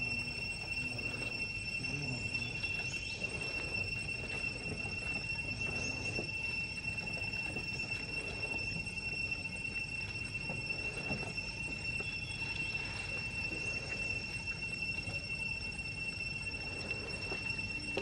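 A steady, high-pitched insect drone that holds one pitch with a fainter overtone above it, over a low rustling background.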